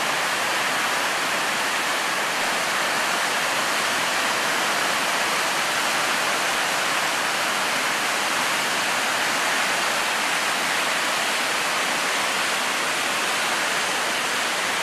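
Big river whitewater rapid running loud and steady: a constant, even rush of crashing water.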